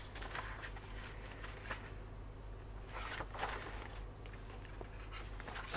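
Paper pages of a colouring book being turned by hand: a few soft rustles, the longest about three seconds in, over a steady low hum.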